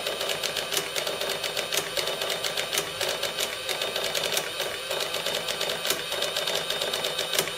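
Sharp XE-A106 cash register's built-in receipt printer running without a break, printing the end-of-day Z1 sales report: a steady, rapid clatter of ticks over a motor hum.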